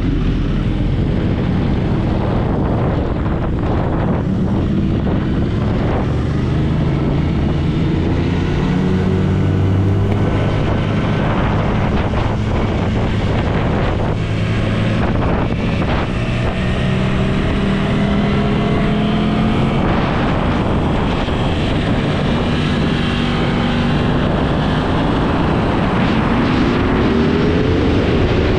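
Aprilia RS660's parallel-twin engine heard from onboard, pulling away from a standstill and running at low road speed, then revving up under hard acceleration with rising pitch near the end. Wind rushes over the microphone throughout.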